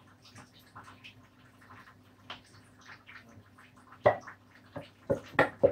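Scattered wet clicks and taps of kitchen utensil work, with a few sharper knocks about four seconds in and near the end, over a low steady hum.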